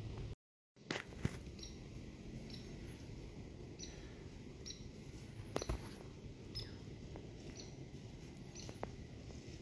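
Short, high chip calls of a small animal, repeating roughly once a second over a low background, with a few sharp clicks about a second in and again in the middle. The audio drops out completely for a moment near the start.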